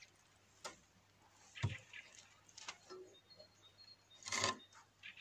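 Mostly quiet, with a few faint knocks and rustles as a wooden plank is handled, one a soft low thump a little under two seconds in, and a brief soft rush of noise about four seconds in.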